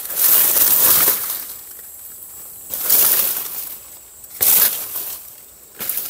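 Rustling of dry banana leaves and grass, in four loud bursts with quieter gaps between.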